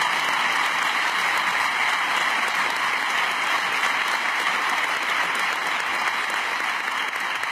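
An audience applauding: steady, dense clapping that holds throughout.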